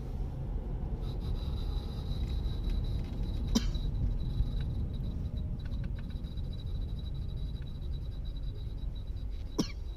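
Honda Civic (8th generation) with a thin, steady, high-pitched metallic scraping whine over a low rumble, plus two sharp clicks. It is brake noise: the pads are worn past their depth and rubbing on the brake disc.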